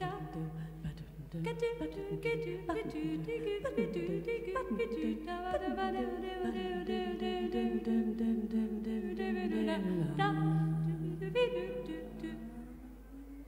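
Wordless a cappella vocal music: several voices humming and singing sustained, gliding notes together, growing quieter near the end.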